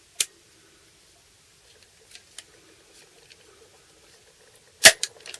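Handling noises from workshop tools: a sharp click shortly after the start, scattered faint ticks and taps, then a louder knock near the end, over a low steady hum.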